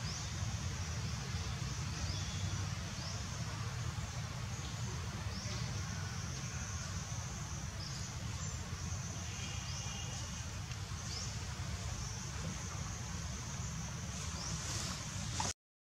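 Outdoor ambience under trees: a steady high insect drone with short rising calls every second or two over a constant low rumble, and a few faint chirps about halfway through. The sound cuts out abruptly just before the end.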